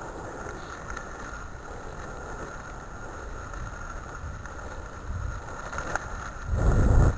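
Low rumble of a dog rig rolling over a gravel track behind a running six-dog husky team, with wind buffeting the microphone. The rumble swells louder about six and a half seconds in.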